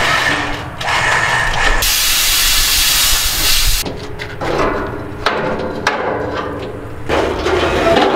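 Compressed air hissing out in one blast of about two seconds, then a few metal knocks and clanks.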